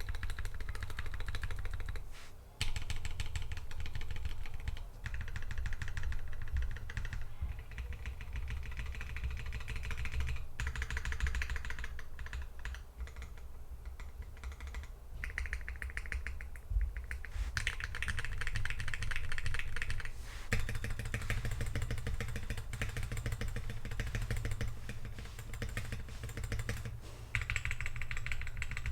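Continuous fast typing on a custom Drop Alt high-profile keyboard with Dogikon JWK linear switches, lubed with Krytox 205g0 and fitted with switch films, under Drop Horizon keycaps. The keystrokes run together in quick clacks, pausing briefly once and thinning out for a few seconds midway. A steady low hum sits underneath.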